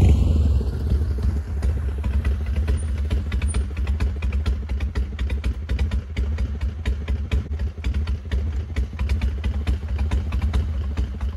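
Harley-Davidson V-twin motorcycle pulling up and idling with a steady pulsing low beat, the engine cutting off at the very end.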